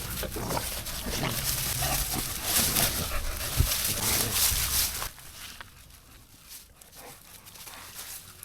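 American Bully dogs roughhousing with puppies: a noisy scuffle of dog sounds for about five seconds, then it drops away quieter.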